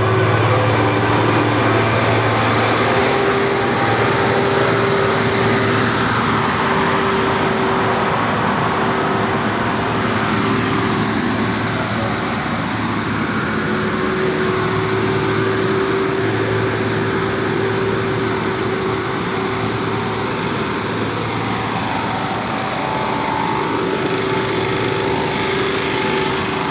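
Motor engines running steadily, a held hum at one pitch over a dense mechanical noise.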